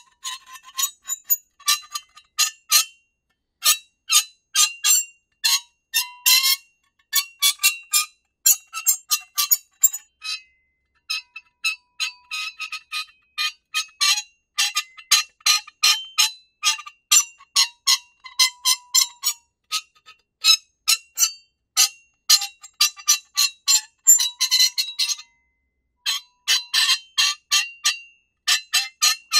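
Harsh, high-pitched metal squeaks from metal rubbing on metal: rapid strings of short, sharp squeals and scrapes in quick clusters, with brief pauses around three, ten and twenty-five seconds in.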